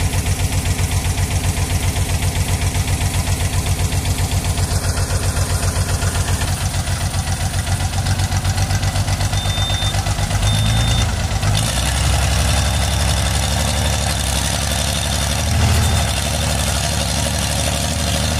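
Heavy diesel engines of a farm tractor and a mud-bogged Scania 113 truck running with an even, fast pulsing beat. About ten seconds in, the sound turns louder and deeper and runs steadily as the tractor tows the stuck truck.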